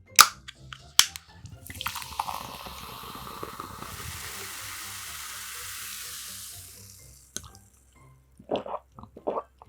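Water poured into a cup-noodle container for about five seconds, a steady splashing hiss that fades out, after a few sharp clicks at the start; a few light taps near the end.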